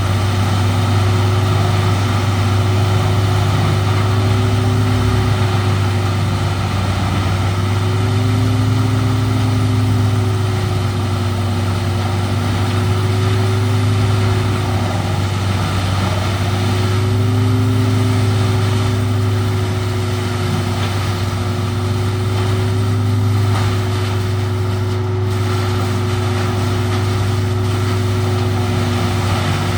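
Peterson 4310B drum wood chipper running steadily while chipping wood, a loud engine drone over a constant rushing noise. Its pitch dips and recovers slightly every few seconds as the load changes.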